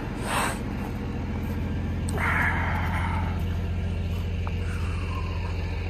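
Heavy diesel tow truck engine idling with a steady low rumble. A short hiss comes about two seconds in.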